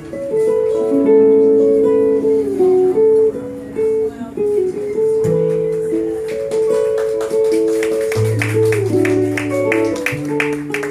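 Live instrumental guitar music from an acoustic guitar and two archtop electric guitars playing together: long held notes and chords, with picked notes coming faster and thicker from about halfway through.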